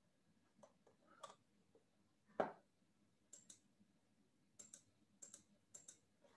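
Faint clicking at a computer, mostly in quick pairs like mouse double-clicks, with one duller tap about two and a half seconds in.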